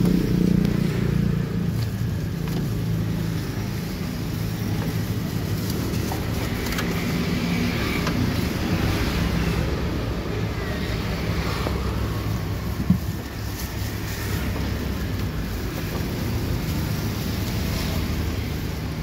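A steady low engine rumble, with a single sharp click about two-thirds of the way through.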